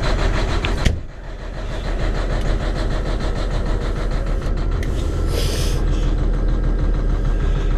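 Mack Pinnacle semi truck's diesel engine idling steadily just after a cold start at about −16 °C, its coolant still below freezing. A thump comes about a second in, after which the engine sounds more muffled, and there is a short hiss near the middle.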